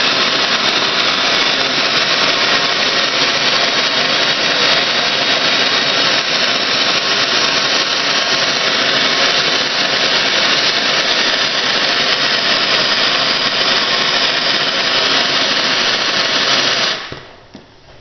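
Hand-held gas torch burning with a steady, loud hiss of flame while it heats a crimped lug on a battery cable to melt the solder inside. The hiss cuts off abruptly about a second before the end as the torch is shut off.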